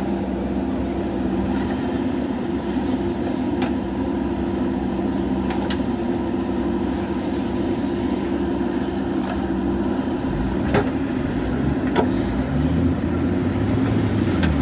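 Diesel engine of a JCB 3DX backhoe loader running steadily while it works, with a few light knocks. A deeper, uneven low rumble joins in over the last few seconds.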